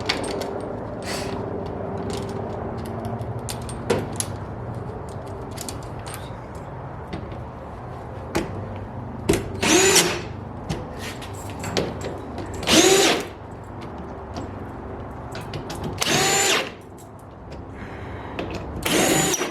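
Cordless drill driving in the fasteners that hold a wickerbill spoiler lip to the trunk lid. It runs for several seconds with small clicks, then spins up in four short whirring bursts a few seconds apart, each rising and falling in pitch as a fastener is tightened.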